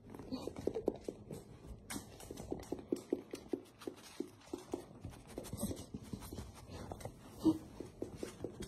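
Beagles panting in quick, short breaths, with faint scratchy rustling. One short louder sound comes near the end.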